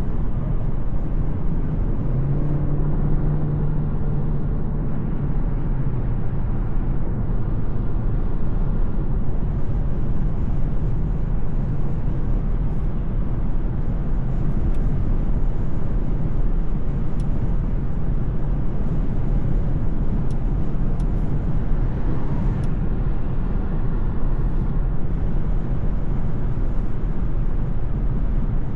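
A 2025 Mercedes-Benz C 200 driving, its 1.5-litre four-cylinder petrol engine and tyres making a steady low rumble. A low hum stands out for a few seconds near the start.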